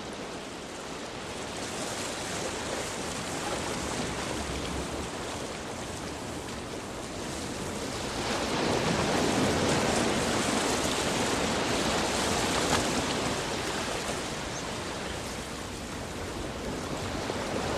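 Ocean surf: a steady rush of breaking waves that swells louder about eight seconds in, then eases off.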